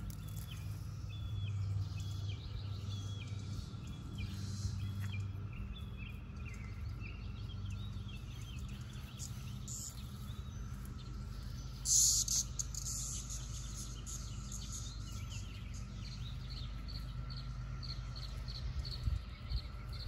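Steady drone of a chorus of periodical cicadas (Brood X), with a bird chirping over it, a string of short repeated chirps in the second half. A short loud burst of noise comes about twelve seconds in.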